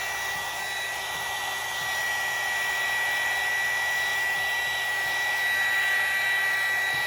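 Handheld heat gun blowing steadily, with a constant high whine.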